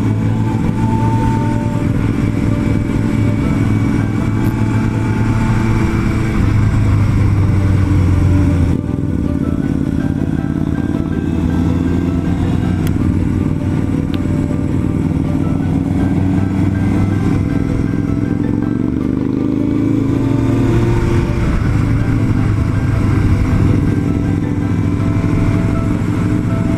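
Motorcycle engine running under way, heard from on the bike with wind rush. About nine seconds in the engine note eases off, and around eighteen to twenty seconds its pitch rises as it picks up speed.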